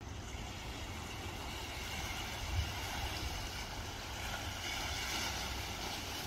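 Steady seaside ambience: an even rush of water and wind, with a low, unsteady rumble of wind on the microphone.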